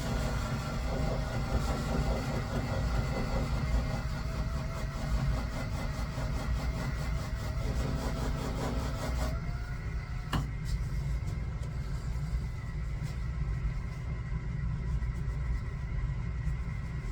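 Typhoon shear-sharpening machine running its rotating hone while a shear blade is held freehand against it, a wavering grinding sound over the steady motor hum. About nine seconds in the grinding stops, a single click follows a second later, and the motor keeps running.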